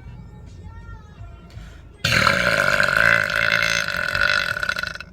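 A long, loud belch that starts suddenly about two seconds in and runs for about three seconds before stopping.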